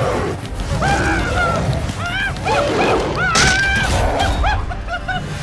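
A string of short, high animal yelps and whines, about six cries that rise and fall in pitch, dubbed in as a sound effect for the toy lion being seized, over a low continuous background.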